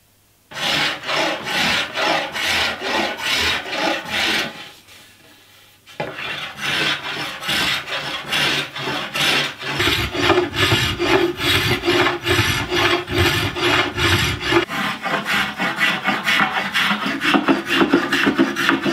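Steel spokeshave shaving the edges off a wooden canoe paddle shaft in repeated scraping strokes, about two a second at first, then faster after a short pause. The strokes are chamfering the shaft's corners down towards a rough 16-sided section. A low steady hum sits under the strokes for a few seconds in the middle and again near the end.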